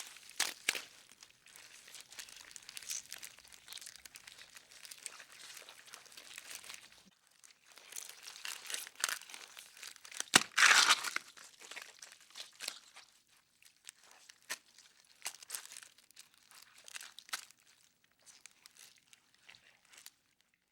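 Beetle movement sound effect: dry scratching, crinkling and clicking, with a louder burst about ten seconds in, thinning to scattered clicks near the end.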